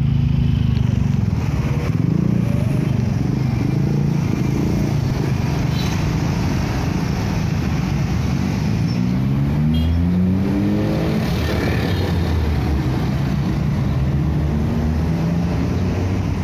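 Road traffic passing close by: cars, motorcycles and small minibuses with their engines running. About nine seconds in, one engine speeds up and its pitch rises for a couple of seconds.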